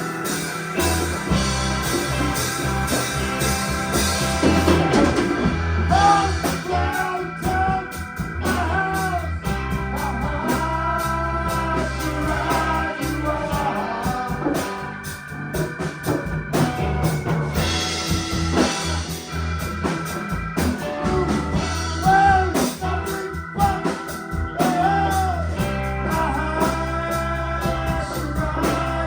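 A live rock band playing a song, with drums, bass, electric guitar and organ-style keyboard.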